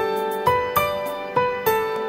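Instrumental background music: a gentle keyboard melody of struck notes, each fading after it sounds.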